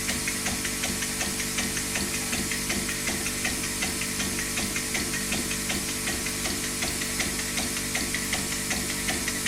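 A model of the Bernays "Non Death Engine" running: its mechanism clicks regularly, about three times a second, over a steady hum.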